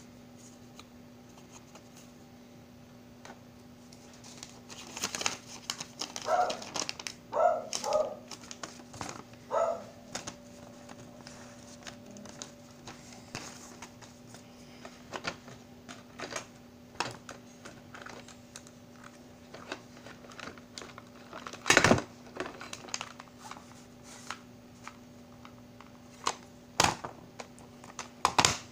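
Clear plastic cassette cases clicking and clacking as they are handled and set down, mixed with plastic wrapping crinkling, busiest a few seconds in and with a few sharp clacks later on. A faint steady hum runs underneath.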